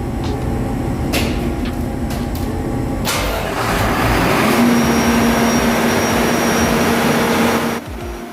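Steady machinery hum with a click, then about three seconds in the ship's emergency generator diesel engine starts and runs loudly with a steady hum and a high whine. The sound cuts off abruptly near the end.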